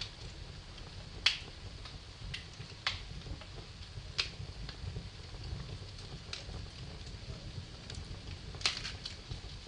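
Wood fire in a fireplace crackling: a handful of sharp pops, the loudest about a second in and another near the end, with lighter ticks between, over a steady low rumble of the flames.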